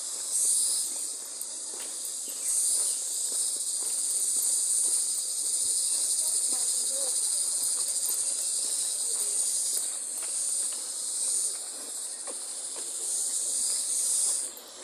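A dense chorus of insects making a steady, high-pitched buzzing drone that swells and eases every few seconds, with soft footsteps on a concrete path underneath.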